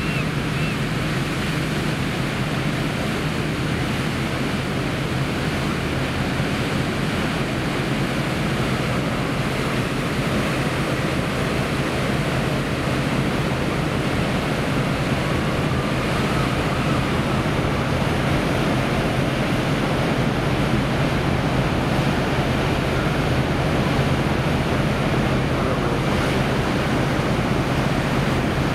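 Car ferry's propeller wash churning the water at the berth, a steady loud rush of water over a low steady hum from the ship's engines as it manoeuvres into the dock.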